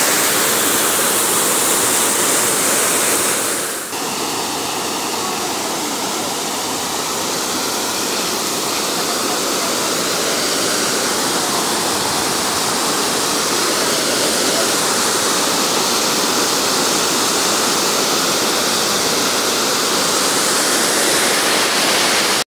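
Muddy floodwater rushing over and through gaps in a stone masonry weir: a loud, steady churning wash of water, dipping briefly about four seconds in.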